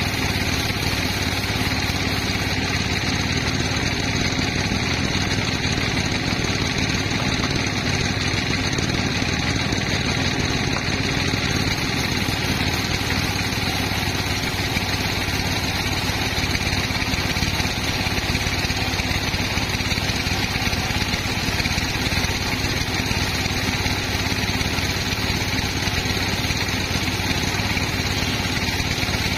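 Sawmill machinery running steadily: a constant engine-like drone that holds one pitch, with no break or change in load.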